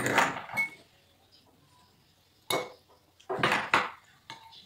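Metal utensil clinking and scraping against a ceramic noodle bowl during eating, in short bursts: one at the start, a single sharp knock about two and a half seconds in, and a quick cluster a second later.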